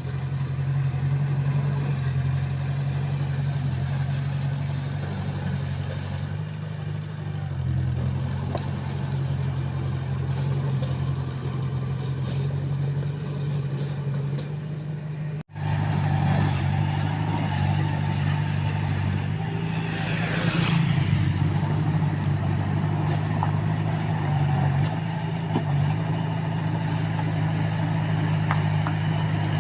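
Komatsu D21A bulldozer's diesel engine running steadily under load, cutting out for a split second about halfway through. About two-thirds of the way in comes a short high-pitched sound that rises and falls.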